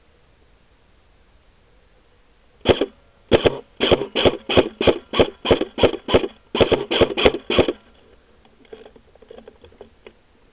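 Airsoft rifle firing a rapid string of about fifteen single shots, roughly three a second, followed by a few faint clicks.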